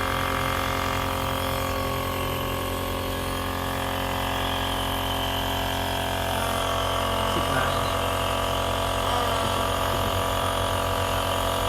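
Compressor nebulizer's small electric motor running with a steady, even hum.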